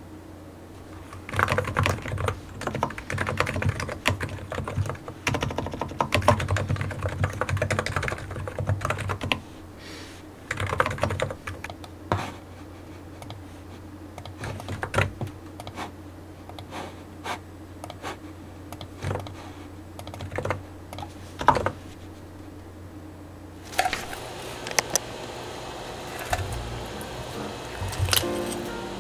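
Typing on a computer keyboard: fast runs of keystrokes in the first ten seconds, then scattered single keypresses, over a steady low hum. The typing stops near the end.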